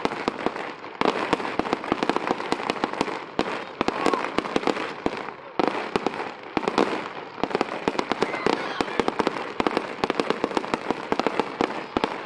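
A fast barrage of aerial fireworks: many shell bursts overlap into a continuous run of bangs and crackles with no pause, with louder surges about a second in and again around the middle.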